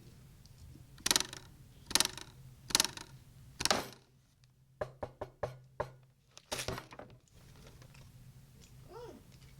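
Cartoon foley effects: four loud knocks about a second apart, then a quick run of lighter, sharper taps and one heavier hit. Near the end comes a short tone that bends in pitch.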